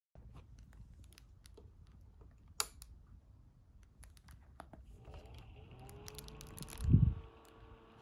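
Clear plastic wrap crinkling and crackling as a small USB desk fan is handled, with a sharper click a few seconds in. About five seconds in a steady motor whine with an airy hiss sets in as the fan starts running, and a low thump comes near the end.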